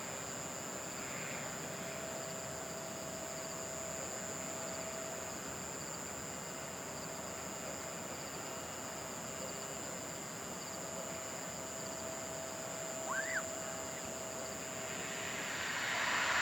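Distant Boeing 777 jet noise: a steady high whine over a faint hiss, growing louder near the end as the engine noise builds. A brief chirp sounds once, about two-thirds of the way through.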